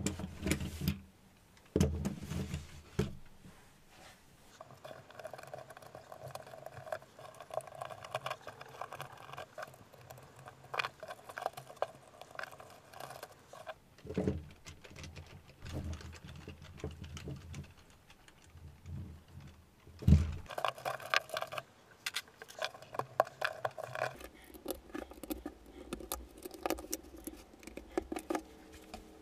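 Small plastic parts handled, with many irregular clicks and rattles and a few low thumps. A steady pitched whir comes in twice for several seconds.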